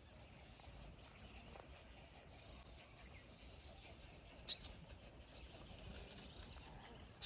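Faint outdoor ambience with a few faint, high bird chirps and a couple of light clicks.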